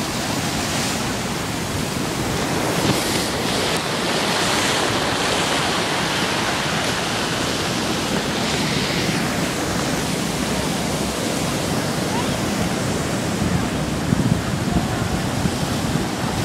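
Ocean surf breaking and whitewater churning over a rocky shore: a steady, loud rush of foaming water, with a few louder surges near the end.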